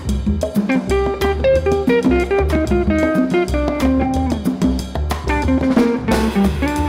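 Instrumental background music with guitar and drums over a steady beat.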